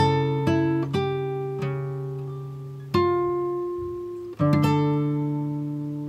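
Background instrumental music: slow acoustic guitar, single picked notes and chords each left to ring out and fade.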